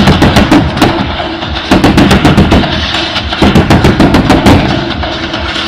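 Fireworks comets launching in rapid volleys from ground-level racks: three quick strings of sharp shots, about eight a second, each about a second long. Show music plays underneath.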